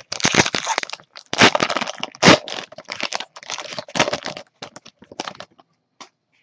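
Plastic trading-card pack wrapper crinkling and crackling as it is handled in gloved hands: dense for about four and a half seconds, then a few scattered crackles.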